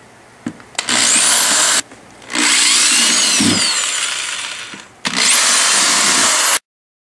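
Black & Decker Firestorm electric drill boring small holes through the plastic bottom of a storage tote, running in three bursts, each with a whine that rises as the motor spins up. The sound stops abruptly near the end.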